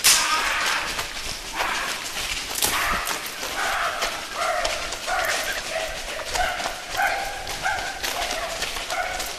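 Hurried footsteps crunching on railroad track ballast, with a few sharp knocks early on. From about three seconds in, a short pitched sound repeats roughly twice a second over the steps.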